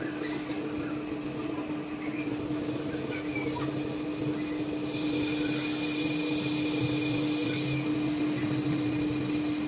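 Metal lathe running with a steady hum from the spindle drive while turning a steel workpiece. A higher hiss joins in for about three seconds around the middle.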